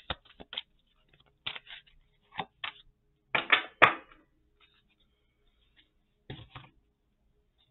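Oracle cards handled on a tabletop: scattered short taps and clicks of the deck in the hands, with the loudest slaps about three and a half seconds in as a card is laid down on the table, and another brief clatter a few seconds later.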